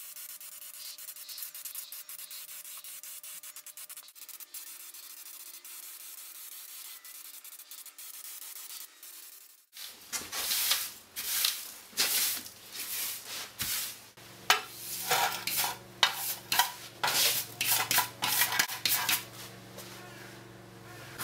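An aerosol spray-paint can hissing in a long, steady spray for about ten seconds. Then a broom sweeping a concrete floor in quick, scratchy strokes, with a sheet-metal dustpan scraping on the floor near the end.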